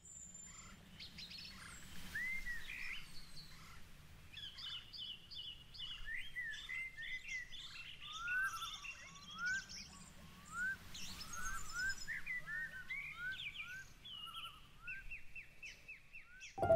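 Several birds singing and calling over faint background noise, with a series of short rising whistles repeated about twice a second through the middle and a fast even trill near the end.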